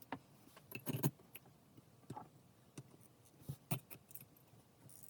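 Faint, irregular light clicks and taps of small metal parts while resistor leads are hand-soldered on a circuit board, a few close together about a second in.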